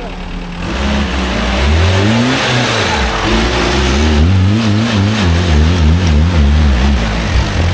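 Off-road vehicle's engine revving hard, the revs climbing and falling. About four seconds in, the pitch wavers quickly up and down several times a second as the throttle is worked.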